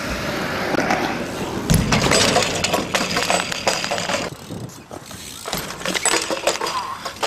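BMX crashes on a concrete skatepark: bikes clattering and skidding on the ground and riders landing hard, with the heaviest thud about two seconds in and another clatter near the end.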